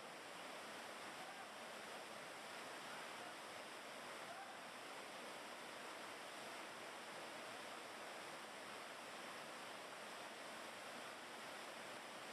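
Steady rush of a waterfall and fast-flowing water, an even hiss with no breaks.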